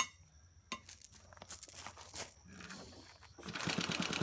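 A sharp click and a few small clicks and rustles, then about three and a half seconds in the 1948 Clinton 702-ABR6 small engine starts and runs with a fast, even firing beat.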